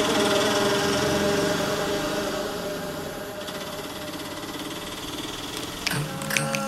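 Auto-rickshaw engine running, fading away over the first few seconds as the vehicle moves off. Near the end, music comes in with sharp clicks and a singing voice.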